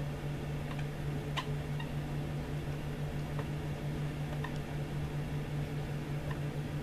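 Dry-erase marker writing on a whiteboard: a few faint taps and squeaks of the tip at irregular moments, over a steady low hum in the room.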